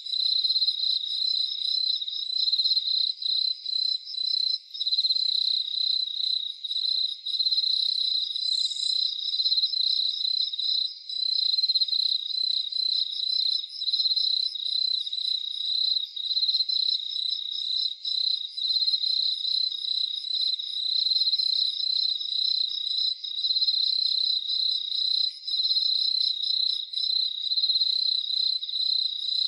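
Crickets chirping in a dense night chorus: a steady, fast-pulsing high-pitched trill, with fainter, higher pulsed calls coming and going over it.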